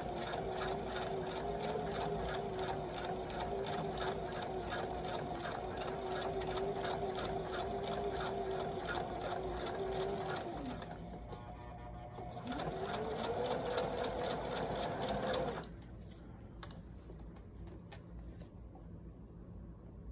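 Brother electric sewing machine stitching, a steady motor whine with the needle's evenly repeating strokes, as elastic is sewn onto swimsuit fabric. About ten seconds in the motor winds down, starts again with a rising whine a couple of seconds later, then stops about two-thirds of the way through, leaving a few faint clicks.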